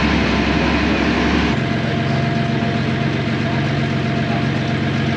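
A boat's engine running steadily under way, with a hiss of wash and wind over it. The engine note changes abruptly about a second and a half in.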